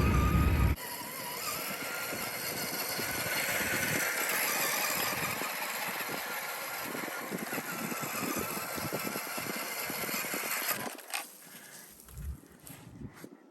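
Electric motor and gear drive of an RC4WD Gelande II D90 scale crawler whining as the truck drives, rising slightly in pitch and then holding steady before stopping near the end. A loud low rumble cuts off sharply in the first second.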